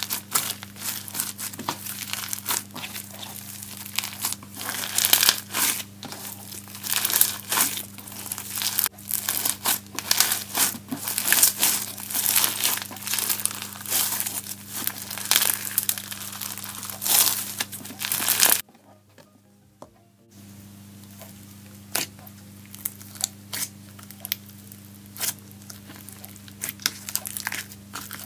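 Foam-bead slime (floam) squeezed and kneaded by hand, giving a dense, crunchy crackle of popping beads. After a short quiet break about 18 seconds in, a softer slime is pressed in its plastic tub, with fainter scattered clicks.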